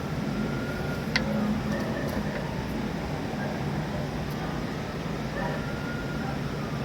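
Steady low hum and background rumble with faint wavering tones above it, and one sharp click about a second in.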